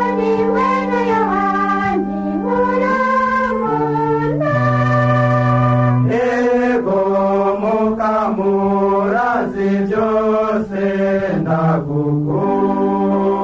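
A religious chant sung by one voice over sustained organ chords that change every second or two.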